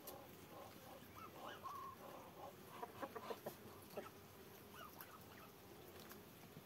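Faint soft clucking from a hen, with a cluster of sharp pecking taps around three to four seconds in as the hen and Muscovy ducks feed on cucumber pieces on the ground.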